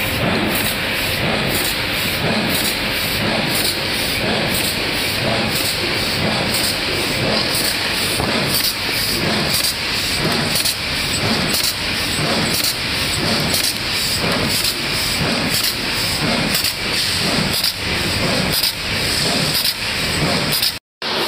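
Four-side-seal stand-up pouch bag making machine running at production speed: a steady mechanical clatter with a fast, regular beat from its sealer and punch strokes, about two a second.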